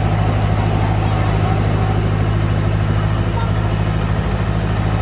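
Excavator engine running steadily, low and even in pitch.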